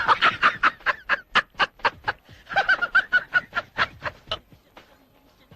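A person laughing in a quick run of ha-ha pulses, about five a second, dying away after about four seconds.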